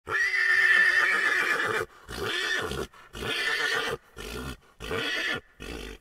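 A pony neighing: one long whinny of nearly two seconds, then five shorter calls in a row with brief gaps between them.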